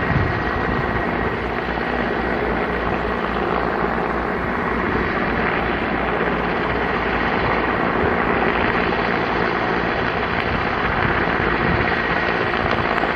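Helicopter engine and rotor running in a steady drone, heard at a distance with no change in level.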